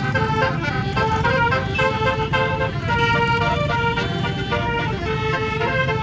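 A tour bus's 18-note 'basuri' telolet air horn playing a tune, one held note after another, over the low rumble of the bus and traffic.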